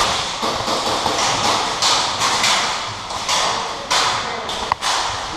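Irregular thumps, taps and rustling, like a player moving in gear, with a sharp click shortly before the end.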